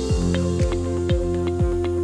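Upbeat corporate-style background music with sustained notes and a steady beat about twice a second.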